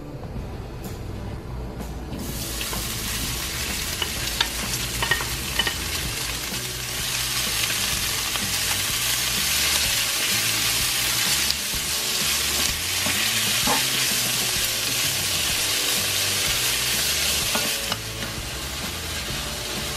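Food sizzling in a hot frying pan while being stirred, with a few sharp clicks of the utensil against the pan. The sizzle starts about two seconds in and grows louder.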